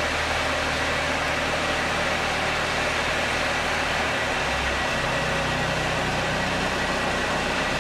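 Aircraft tow tractor's engine running steadily while towing a helicopter, under a steady hiss with a faint high whine; the low engine note shifts about four seconds in.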